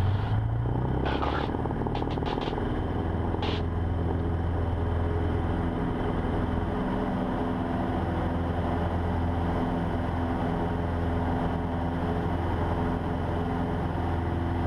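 Cessna 150's four-cylinder Continental O-200 engine running at take-off power through the roll and climb-out, heard inside the cabin as a steady, even drone.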